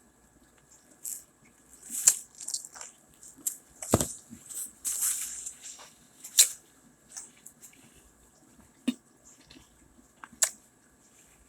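Close-up eating of Popeyes fried chicken: irregular crunching bites and chewing, with sharp mouth clicks and smacks.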